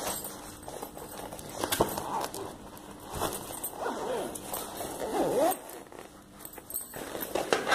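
Nylon laptop backpack being handled and turned over, fabric rustling with a sharp click a little under two seconds in. Around the middle come whining calls that glide up and down in pitch, the loudest sound in the stretch.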